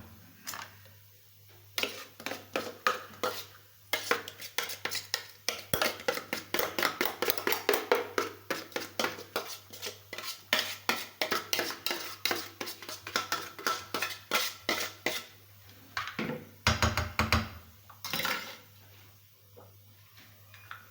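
Kitchen utensil clattering rapidly and rhythmically against a dish, about four or five strokes a second for some twelve seconds, then two heavier knocks near the end.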